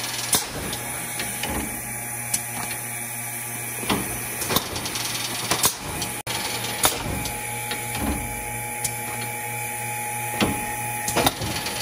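Nordale intermittent-motion end-load cartoner running: a steady hum under irregular clacks and clicks from its mechanisms as it handles cartons. There is a momentary dropout a little past halfway.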